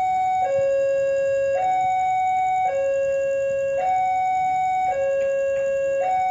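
Railway level-crossing warning alarm sounding a steady two-tone high-low pattern, each tone held about a second, warning of an approaching train.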